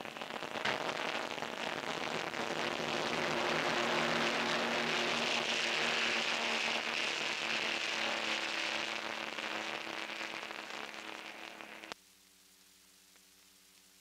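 Noisy roar of racing power boat engines on a crackly, hissing 1930s film soundtrack. It swells to a peak midway, fades, then cuts off abruptly about twelve seconds in, leaving a faint steady hum.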